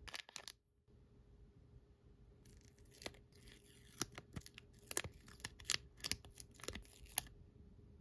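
A paper sticker sheet is peeled away from its backing, a run of sharp crackles and papery rustles lasting several seconds. Just before it, a foil blind bag crinkles briefly.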